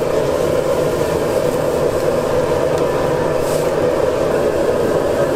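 Commercial gas wok burner running at full flame under a wok of boiling seafood broth: a loud, steady rushing noise.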